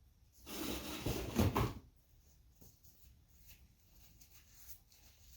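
A second and a half of rustling and clattering as containers and tools are handled on a workbench, with a few sharp knocks. Faint taps and ticks follow.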